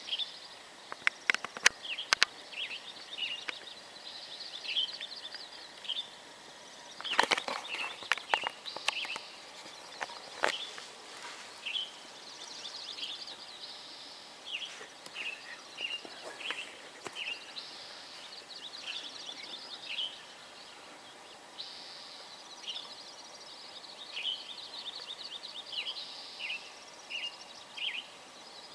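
Small songbirds chirping over and over in short bright calls, with a few sharp clicks, the loudest cluster about seven seconds in.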